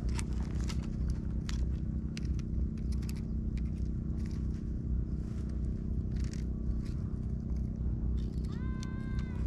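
Scissors snipping and scraping at a freshly caught fish on rock, a scattering of short sharp clicks, over a steady low hum. Near the end a short pitched tone with a rising start sounds for about a second.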